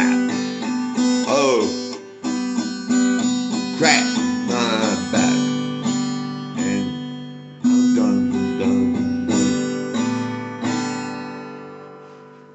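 Acoustic guitar playing a song's closing chords, each chord struck and left to ring. The last chord fades out steadily near the end.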